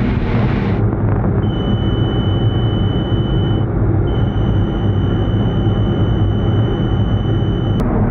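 DN Solutions Puma 2600SY II CNC lathe cutting a bar part under flood coolant, giving a steady dense machine rumble. A steady high whine comes in about a second and a half in, breaks off briefly near the middle and resumes.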